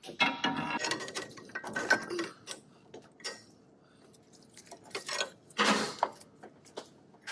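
Metal clanking and clicking as a front strut assembly is shifted and lined up into its upper mount, a rapid run of clinks first, then a few scattered clicks and two short scrapes about five to six seconds in.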